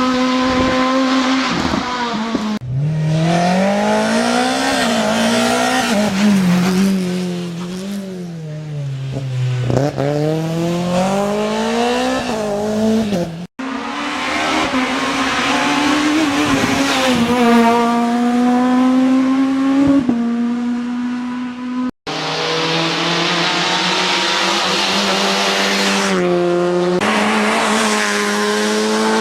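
Rally car engines running hard, the pitch climbing and dropping through gear changes and braking as cars pass, in several short clips cut together with abrupt breaks.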